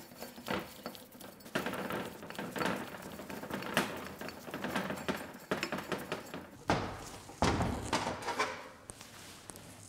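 Irregular light metallic clinks, scrapes and taps as a Yamaha SVHO jet-pump impeller is spun by hand onto the threaded end of a driveshaft and the parts are handled on a metal workbench, with a few duller knocks about seven seconds in.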